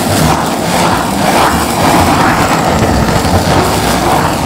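Handheld kitchen blowtorch blasting a flame onto a dark sauce in a cast-iron pan: a loud, steady rushing hiss mixed with the sauce sizzling under the heat.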